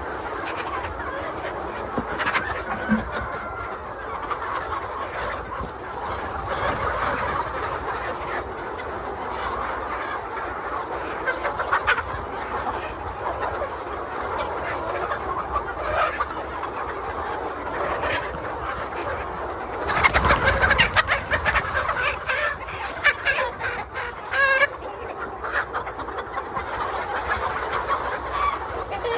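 A flock of laying hens clucking continuously. About two-thirds of the way through there is a louder, noisier stretch, followed shortly by a short, sharp squawk.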